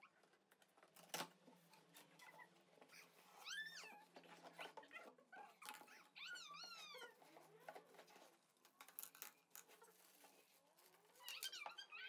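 Near silence, with faint knocks and rustles of a cardboard box being opened and handled, and a few faint high-pitched calls that rise and fall in pitch.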